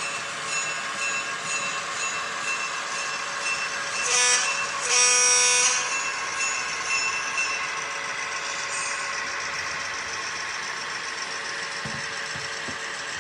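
HO scale model train running on the layout. Its sound-equipped locomotive gives a short horn blast about four seconds in and a longer one a second later.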